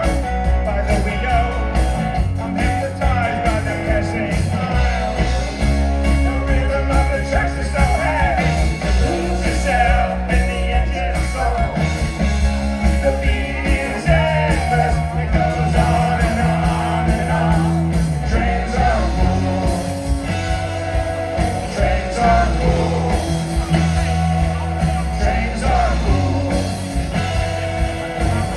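A rock band playing live with a singer, electric guitar, bass and drums keeping a steady beat.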